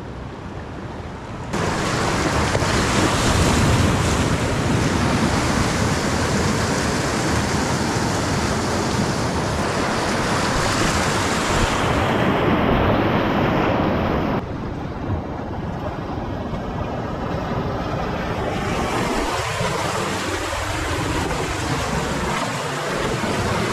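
Whitewater rapid rushing and splashing close around an inflatable kayak running through it. The water noise jumps suddenly louder about a second and a half in, then drops back a little and turns more uneven past the middle.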